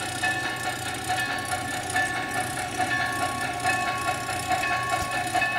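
HO-scale model of a Duluth, Missabe & Iron Range articulated steam locomotive running along the track: a steady set of pitched tones over a low hum.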